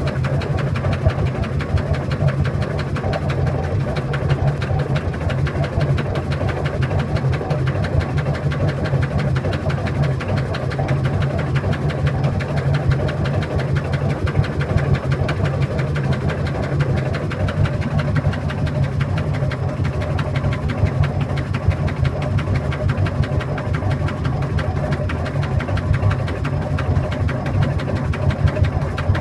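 Washing machine running noisily: a loud, steady low drone with a fast, even clatter over it that does not let up.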